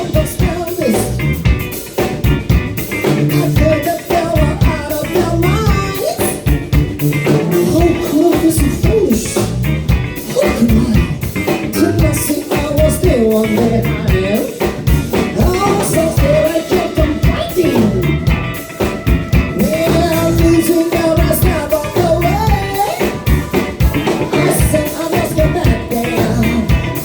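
Live band playing an upbeat pop-rock number with drum kit and guitar, a melody line weaving over a steady beat.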